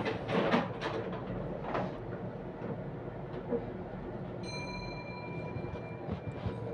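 Shop background noise: a steady rumble with a few knocks and clatters near the start, and a steady electronic beep tone starting a little past the middle and holding for about two seconds.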